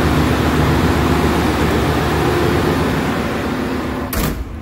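Loud, steady machinery din of a ship's engine room: a dense hiss over a low hum. About four seconds in there is a short thump, and the noise then drops and sounds more muffled.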